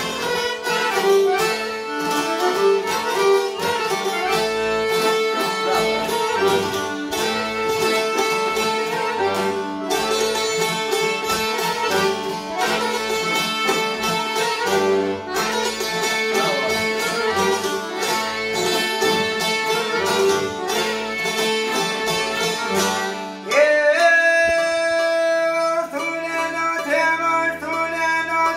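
Albanian folk music played live by an accordion, a violin and two plucked long-necked lutes in a lively instrumental passage. About 23 seconds in, the instruments drop back and a man begins to sing over them.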